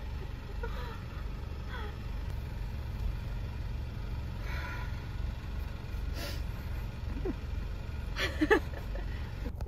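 Steady low rumble of a car's engine and road noise heard from inside the cabin while driving, with a few faint, brief murmurs of voice.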